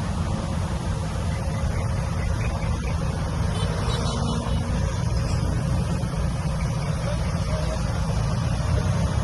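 Diesel engine of heavy earthmoving equipment running steadily: a deep, continuous rumble.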